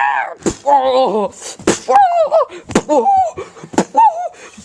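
A voice making short wordless cries that rise and fall, cut by sharp slaps about once a second.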